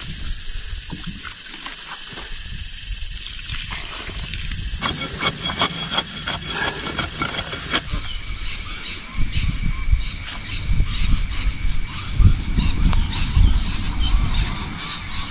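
A loud, steady high-pitched hiss that cuts off abruptly about eight seconds in. After it come quieter, uneven low rumbles and bumps.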